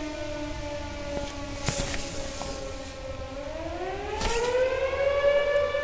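Dam warning siren wailing. Its pitch sags slightly, then winds up over about a second and holds high near the end.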